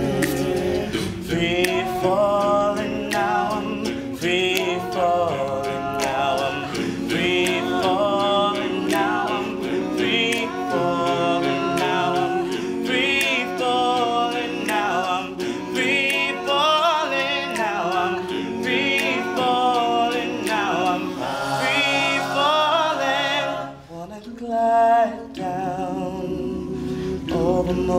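Male a cappella group singing: a solo voice carries a wavering melody with vibrato over sustained chords from the backing singers. Near the end the singing briefly drops away.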